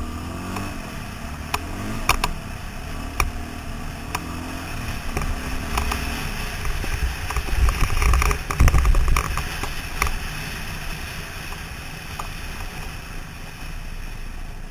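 KTM 530 single-cylinder four-stroke dirt bike engine running while riding a rough gravel road, its pitch rising and falling with the throttle during the first few seconds. Knocks and rattles from the bumpy surface run throughout and are loudest about eight to nine seconds in.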